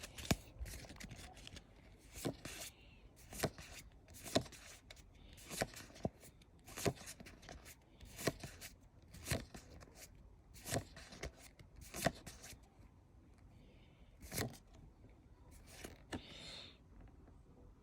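Pokémon trading cards being flipped through one at a time, each card slapping or sliding onto the pile with a short, sharp click, about one a second.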